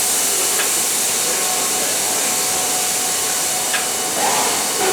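Steady hissing rush of grain pouring out of hopper wagons into an unloading pit, with a couple of faint clicks and a brief louder surge near the end.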